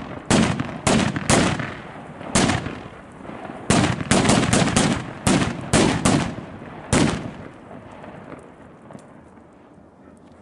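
A heap of cohetes (firecrackers) exploding on the ground. About fifteen loud, sharp bangs go off at irregular intervals, some in quick clusters. After about seven seconds they thin out to faint crackling.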